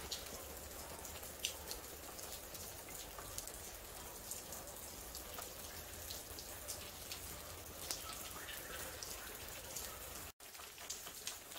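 Water from overhead sprinklers falling like rain onto the shiitake logs and ground: a steady patter with scattered sharp drip ticks, breaking off for an instant near the end.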